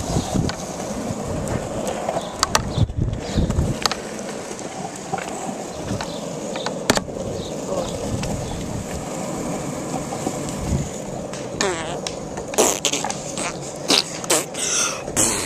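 Longboard wheels rolling steadily on asphalt, with sharp clicks over the road surface and a few louder knocks near the end.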